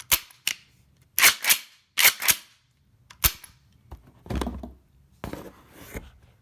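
Metal clacks from a Mossberg 500 pump-action shotgun being worked by hand to take its barrel off: about seven sharp clacks, some in quick pairs like the slide going back and forward. Then two longer metal scrapes as parts slide apart.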